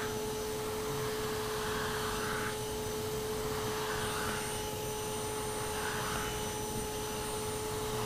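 Small inexpensive canister vacuum cleaner running steadily with a constant hum, its motor muffled in a closet and drawing air through a long hose to a deshedding comb attachment. A few brief swells of hiss rise over it as the comb is stroked through a long-haired Persian cat's coat, sucking up the loose fur.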